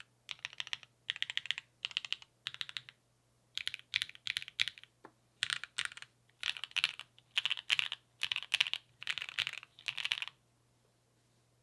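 Custom mechanical keyboard with lubed Gateron Cream Soda linear switches on an FR4 plate and a tape-modded PCB, typed on in short bursts of quick keystrokes. The typing stops shortly before the end.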